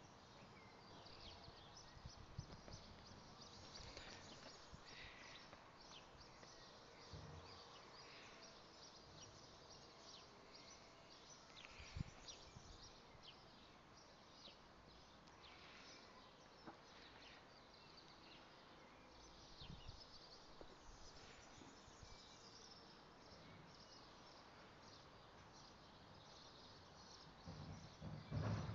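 Near silence: faint garden ambience with scattered short high chirps of distant birds, a sharp click partway through, and a short low rumble near the end.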